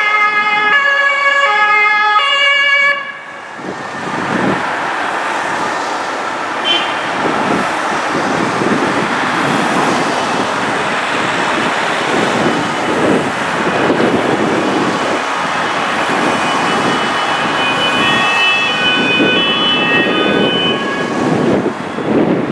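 German police two-tone sirens wailing back and forth between two pitches, cutting off about three seconds in. Then the engines and tyres of the police vans pass in a steady stream, and two-tone sirens come back fainter near the end.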